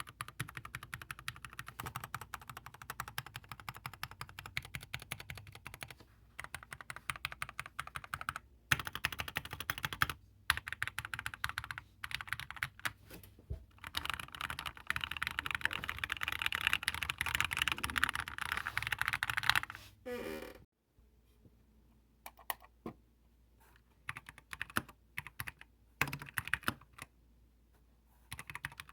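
Computer keyboard being typed on rapidly, in fast runs of key clicks with short pauses. After about twenty seconds the typing gives way to scattered single keystrokes.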